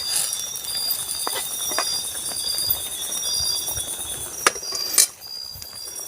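Night insects chirring steadily in a pulsing, high-pitched chorus, with a few sharp clicks or knocks, the loudest about four and a half and five seconds in.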